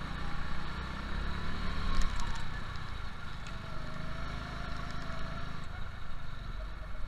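Go-kart engine running hard, heard from on board, its note dipping and rising through the corners. A sharp knock about two seconds in.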